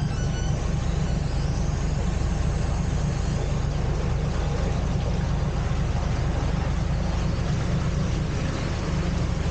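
Narrowboat engine idling steadily, an even low throb.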